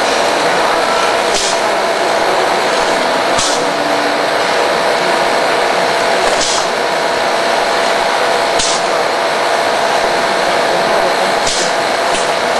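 Bottled-water carton packing machine running, with a steady machine noise and a constant hum. Short hisses come every two to three seconds, typical of its pneumatic cylinders venting air.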